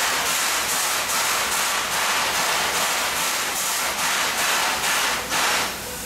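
Steam hissing steadily from JNR 8620-class steam locomotive No. 58654, a continuous rushing hiss that dips briefly near the end.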